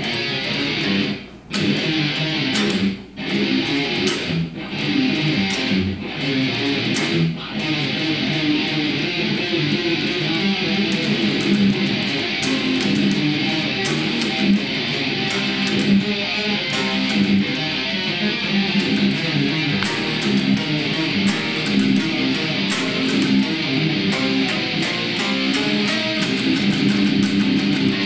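Electric guitar played through an amplifier in a heavy metal riff, picked and strummed, stopping short several times in the first few seconds and then playing on without a break.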